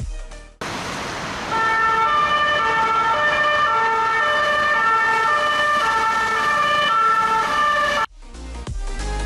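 Electronic siren with tones alternating up and down every half-second or so over a steady hiss, growing louder after about a second and cutting off sharply near the end.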